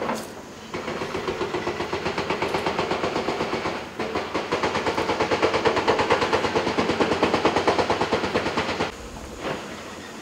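Excavator-mounted hydraulic breaker hammering at stone masonry: a rapid, even run of blows, several a second. It pauses briefly about four seconds in and stops about nine seconds in.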